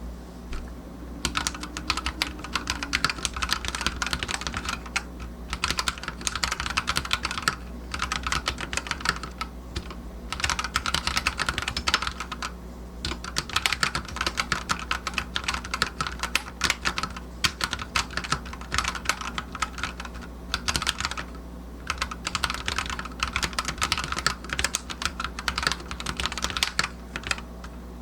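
DarkFlash GD87 tenkeyless mechanical keyboard being typed on: fast, continuous runs of key clicks, broken by short pauses every few seconds.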